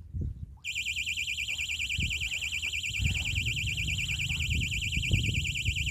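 Electronic bite alarm on a fishing rod sounding a continuous, rapidly warbling beep that starts about half a second in: the signal that a fish has taken the bait.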